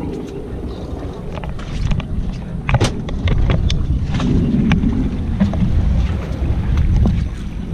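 Wind buffeting the microphone on an open fishing boat, with a few sharp clicks and knocks about three seconds in and a scattering more later.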